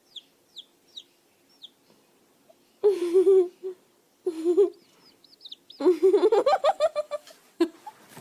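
Birds calling: about five short high falling chirps, then three loud wavering calls, the last one longer and climbing in pitch.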